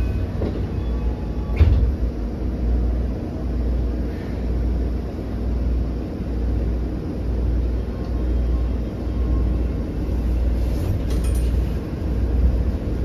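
Toei Oedo Line 12-000 series linear-motor subway car running, heard from inside the passenger cabin: a steady low rumble that swells and eases every second or two, with one sharp knock about a second and a half in.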